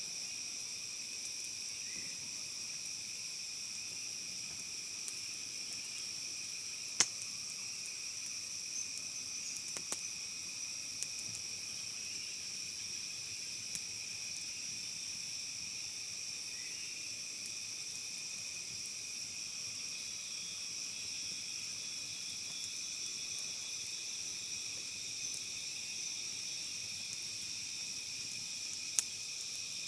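Steady chorus of forest insects, several high shrill tones held without a break, with a few sharp pops from a wood campfire; the loudest pops come about seven seconds in and near the end.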